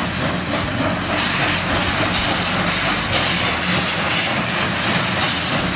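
Union Pacific Big Boy No. 4014 steam locomotive running at speed: a steady, loud rush of exhaust and steam hiss mixed with the rumble and clatter of wheels on the rails.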